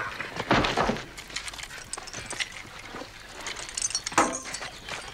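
Sounds of a close-quarters fight: scuffling, with sharp metallic clinks and knocks scattered through it and the loudest hit about four seconds in.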